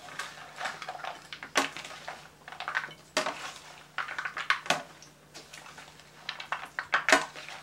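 Two serving spoons tossing chopped chicken, cashews and tomatoes in a ceramic bowl: irregular clinks and scrapes of the spoons against the bowl, a few of them sharper knocks.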